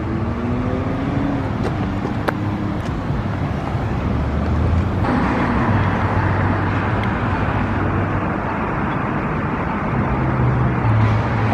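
Steady street traffic noise: cars driving past with a continuous rush of tyres and engines. The rush grows brighter about five seconds in.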